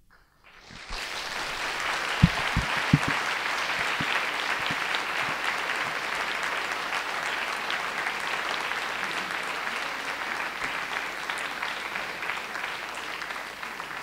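Audience applauding, starting about a second in and dying away near the end, with a few low thumps about two to three seconds in.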